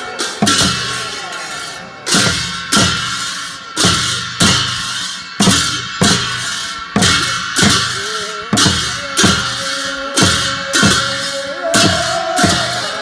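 Large hand cymbals clashed together and hand-held drums beaten with sticks in a steady dance beat, about one stroke every three-quarters of a second, each cymbal clash ringing on into the next.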